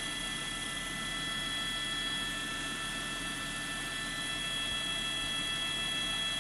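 News helicopter's engine and rotor noise, as heard in the cabin: a steady turbine whine of several fixed high tones over a constant wash of noise.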